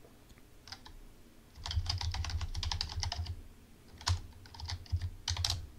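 Typing on a computer keyboard: a few single keystrokes, then a quick run of keystrokes about a second and a half in, and a few scattered ones near the end.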